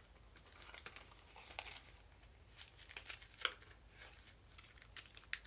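Faint paper rustling and crisp handling noises from a handmade accordion-fold paper book being handled, in scattered short bursts.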